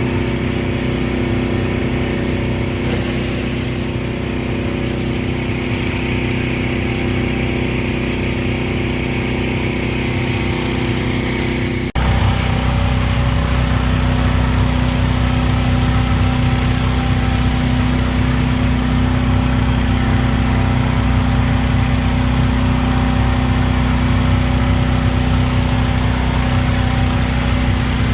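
Small gasoline engine running steadily; about twelve seconds in the sound changes abruptly and the engine is louder and deeper from there on.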